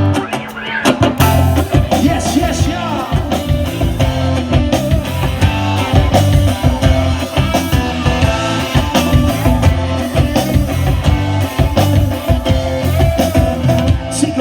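Live rock band playing an instrumental passage with guitar, a heavy low end and a steady drum beat, loud and continuous.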